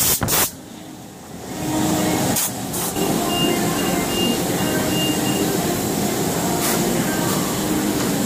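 Foltex AT230 BH towel and garment folding machine running with a steady mechanical rumble from its conveyors, broken by sharp clacks from the folding and stacking mechanism. The sound briefly drops away about a second in, and a run of short high beeps sounds around four seconds in.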